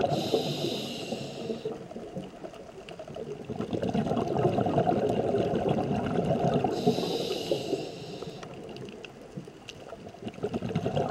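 Scuba diver's regulator breathing underwater in slow cycles: a sharp hiss of inhalation twice, about seven seconds apart, and rumbling gurgles of exhaled bubbles between quieter pauses. Faint scattered clicks run through it.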